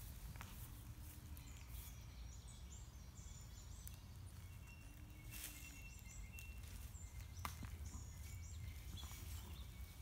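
Faint outdoor ambience of small birds chirping and twittering, over a steady low rumble, with a couple of soft clicks near the middle and later on.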